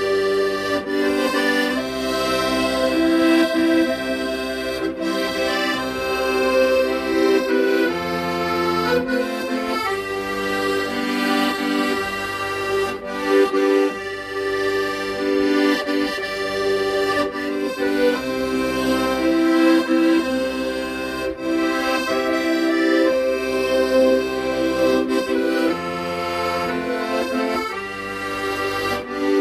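Accordion playing a slow, lyrical melody over sustained chords, the low bass notes changing every second or two.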